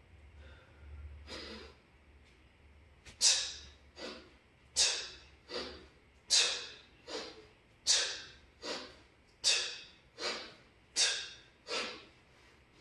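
Sharp, forceful breaths in time with kettlebell swings: about six strong exhales, one per swing, roughly every one and a half seconds, each followed by a weaker breath, beginning about three seconds in.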